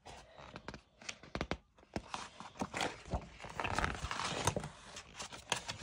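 Pages of a picture book being turned by hand: paper rustling and sliding, with scattered light taps and clicks and a longer rustle a little past halfway.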